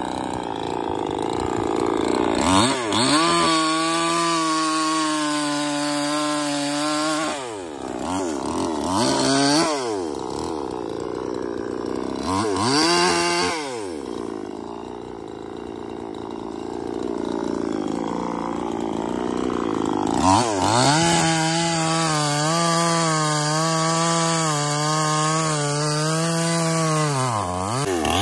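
Gasoline two-stroke chainsaw cutting through a felled tree trunk. The engine revs up to full throttle and holds a high, steady pitch for several seconds at a time, twice for long stretches, with short blips in between. Between cuts it drops back to a lower pitch.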